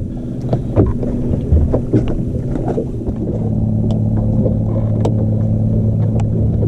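A boat's motor running with a steady low hum that gets louder and steadier about three seconds in, with a few knocks and clatter in the boat during the first half.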